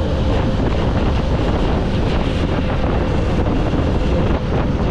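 Wind buffeting the microphone on a moving Honda CG 125 motorcycle, with the bike's single-cylinder engine running steadily underneath.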